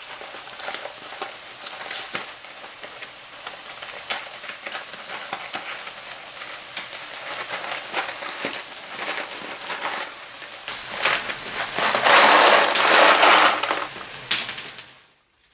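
Cardboard box of stroganoff mix being opened and handled, crackling and rustling with many small clicks. A louder stretch of rustling starts about eleven seconds in and stops suddenly near the end.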